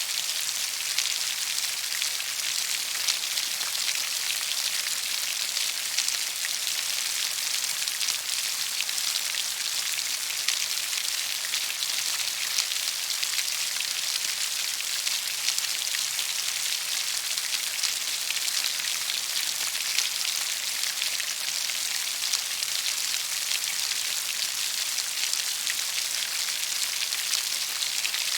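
Steady rain falling: an even hiss of many raindrops with fine patter, holding the same intensity.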